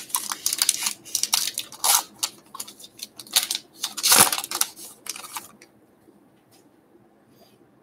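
Baseball card pack wrapper being torn open and crinkled in the hands: a run of sharp, irregular crackles lasting about five seconds.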